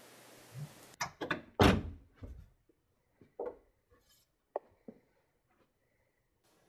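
A series of thuds and knocks: a quick cluster about a second in, the loudest thud just after, then a few lighter knocks and clicks spread over the next few seconds. A steady hiss cuts off abruptly just before the first knock.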